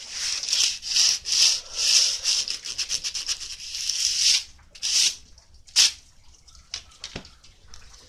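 Sandpaper rubbed back and forth in quick, scratchy strokes, about two a second, for roughly four seconds. One more stroke follows a second later, then a single sharp click.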